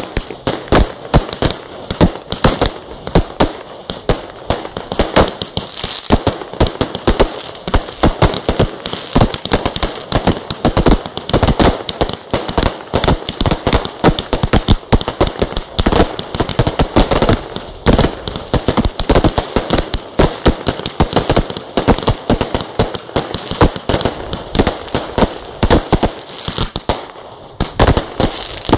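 Fireworks display: a rapid barrage of aerial bursts, several bangs a second, over continuous crackling. There is a brief lull near the end.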